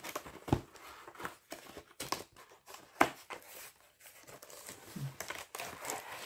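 A box and its packaging being opened and handled by hand: rustling and crinkling, with several sharp clicks and taps, the loudest about three seconds in.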